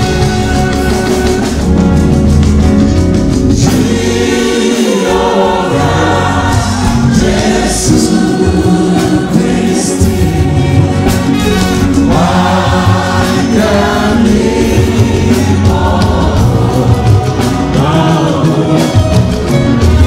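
Large church congregation singing a hymn together, loud and continuous, with many voices.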